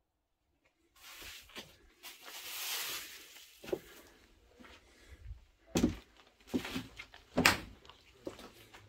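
After about a second of near silence, a burst of rustling, then a run of dull thumps and knocks, the loudest about six and seven and a half seconds in.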